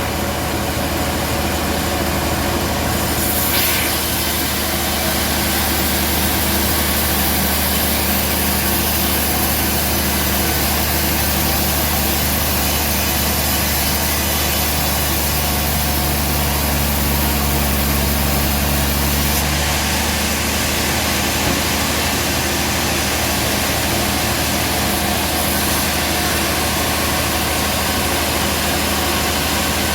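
Band sawmill running steadily and sawing through a trembesi (rain tree) log, with a constant low motor hum under the hiss of the blade.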